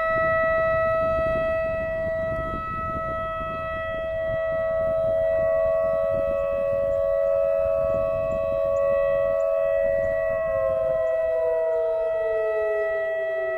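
Whelen WS-3000 electronic outdoor warning siren sounding a steady chord of tones during a test, slowly swelling and fading in loudness. About ten seconds in, some of its tones begin to slide down in pitch as it starts to wind down.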